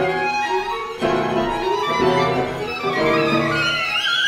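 Contemporary chamber music from a flute, clarinet, violin, cello and piano quintet, with the violin standing out. Held chords change about once a second, and a high line slides upward near the end.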